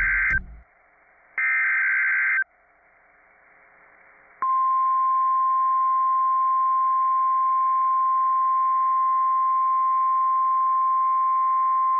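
NOAA Weather Radio emergency alert: the end of one buzzy digital SAME header burst, then another full burst about a second long, then a short pause of faint hiss. About four and a half seconds in, the steady single-pitch 1050 Hz warning alarm tone starts and holds, signalling that a tornado warning message is about to be read.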